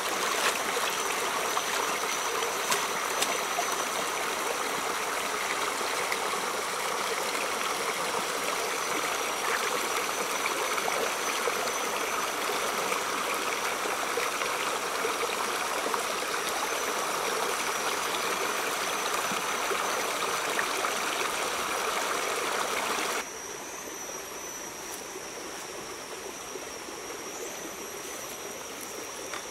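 Small rocky stream running over a low cascade: a steady rush of water, with some splashing in the first few seconds as greens are swished through it. A thin steady high tone runs through it. About three-quarters of the way through it drops suddenly to a softer, duller flow.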